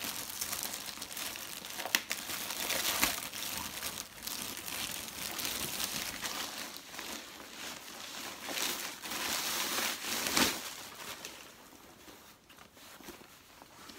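Clear plastic packaging bag crinkling and rustling as it is pulled open and a folded jacket is drawn out of it, in uneven handfuls. The loudest crackles come about two seconds in and again about ten seconds in, and it gets quieter near the end.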